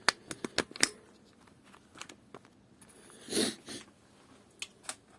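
Scattered sharp clicks of hand tools being handled: several in the first second, a short rustle in the middle, and two more clicks near the end.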